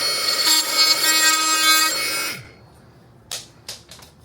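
A power tool cutting off glued wooden golf tees in a door jamb: a steady whine that winds down in pitch a little over two seconds in as the tool stops. A few short knocks follow near the end.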